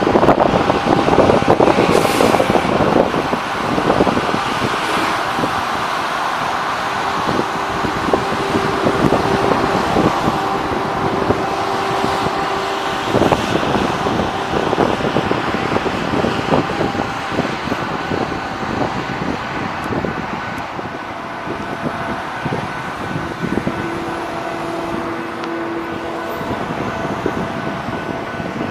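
Rail maintenance-of-way equipment, a hi-rail truck and track machines, rolling past on the rails with engines running and steady whining tones coming and going over a clattering noise.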